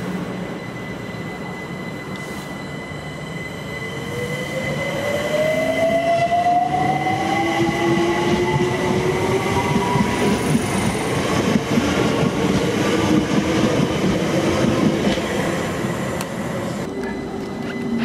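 London Overground Class 378 electric multiple unit pulling out of the station: its traction motors give a rising whine as it accelerates, followed by wheel-on-rail rumble as the carriages pass. Near the end a steady low tone starts as another train approaches.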